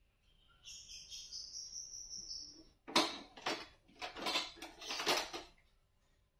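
A thin, high whistle-like tone for about two seconds, then five or six short crinkling bursts as the plastic casing is peeled off a sausage by hand.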